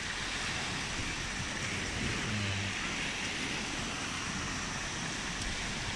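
Small waves breaking and washing up a sandy beach: a steady surf hiss.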